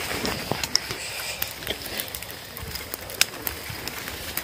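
Tall grass and stinging nettles rustling and brushing against a bicycle and trailer being pushed through them. Scattered sharp clicks and knocks run through it, with one louder knock about three seconds in.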